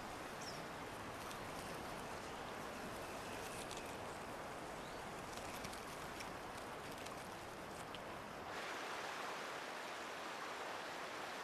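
Faint, steady outdoor ambience, an even hiss, with a few faint high bird chirps; the background changes about eight and a half seconds in, losing its low rumble.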